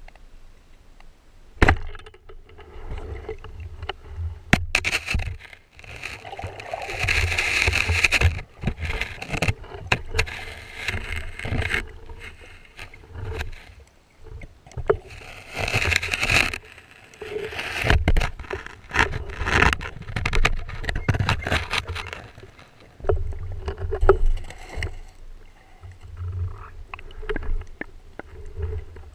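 Water sloshing and gurgling heard through an underwater camera housing as a spearfisher swims near the surface, in irregular surges, with sharp knocks and scrapes from handling the speargun.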